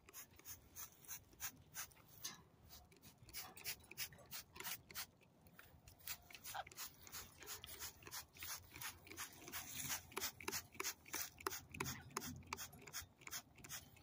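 Spray bottle squirting water in quick repeated bursts of hiss, about two to three a second, coming faster and a little louder in the second half.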